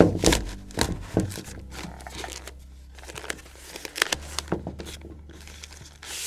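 A white protective packaging sleeve crinkling and rustling as a network switch is pulled out of it, in uneven bursts of handling noise that are loudest in the first second and again about three to four seconds in.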